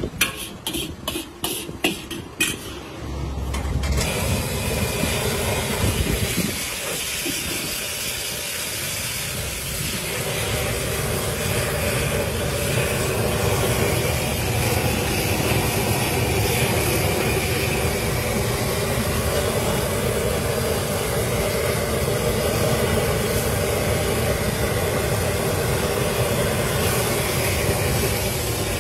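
Food deep-frying in a large wok of hot oil: a steady sizzling hiss that sets in about four seconds in, after a few sharp knocks. A low rumble runs under it.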